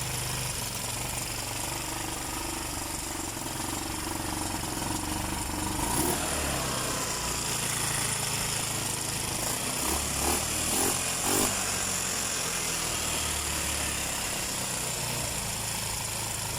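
Small engine running steadily with a fast, even beat after being started following a wiring repair that had left it with no start. A few short louder rises come about ten to eleven seconds in.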